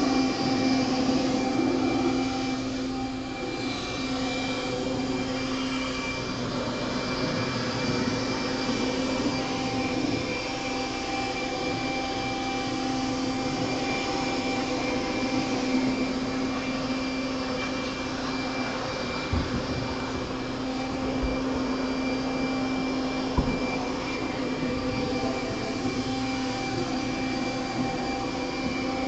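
Electric leaf blower running steadily with a constant motor whine and rushing air. A brief knock comes about two-thirds of the way through.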